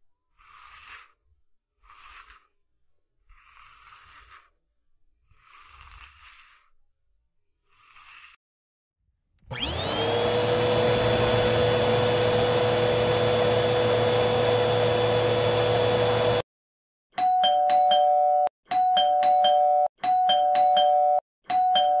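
A comb stroked about six times, roughly once a second. Then a vacuum cleaner starts with a rising whine, runs steadily for about seven seconds and cuts off suddenly. Then a doorbell rings four times in quick succession.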